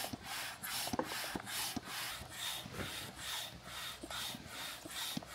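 Hand air pump inflating an inflatable tent's air arches: even, rhythmic rushing strokes of air, about two and a half a second, with a faint whistle on some strokes from about halfway in.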